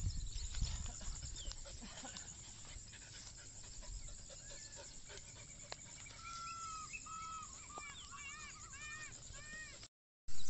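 Open-field ambience: a steady high insect trill, with a run of short whistled bird calls from about five seconds in, quickening near the end. A low rumble and a few soft knocks sit under the first second, and the sound drops out briefly just before the end.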